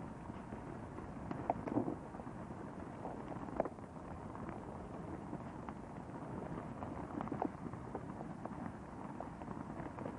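Volcanic eruption jetting a column of ash and steam from a crater: a steady rushing noise dotted with irregular cracks and pops. The sharpest cracks come about two seconds and three and a half seconds in.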